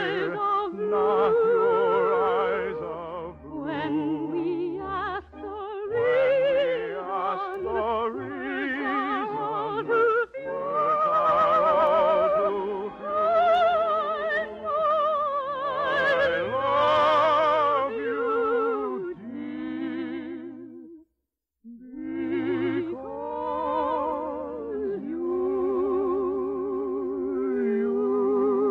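Operetta-style love song: trained voices singing with strong vibrato over an orchestra, in long held phrases. The music stops briefly about 21 seconds in, then resumes, ending on a held note.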